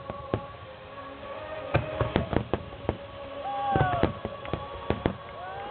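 Firework shells bursting in a rapid string of sharp bangs over steady music played through loudspeakers, with a brief falling whistle about three and a half seconds in.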